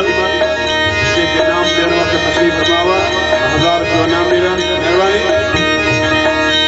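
Instrumental break in a folk devotional bhajan: an electronic keyboard plays the melody over a steady drone, with a dholak hand drum keeping the rhythm.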